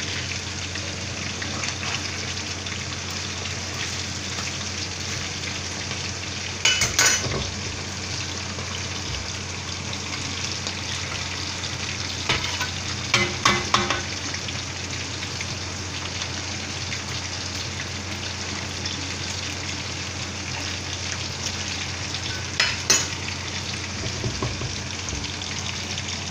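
Chicken wings deep-frying in hot oil in a wok, sizzling steadily. The spatula scrapes and clatters against the wok a few times as the pieces are turned: about seven seconds in, a cluster around thirteen seconds, and again near twenty-three seconds.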